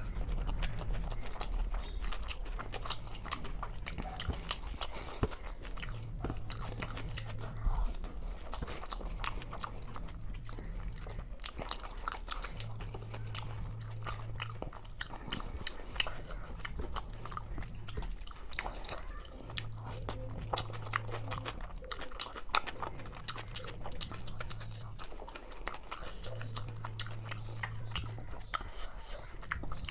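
Close-miked eating: chewing and biting with frequent small crunches and clicks, irregular and unbroken, over a faint low hum that comes and goes.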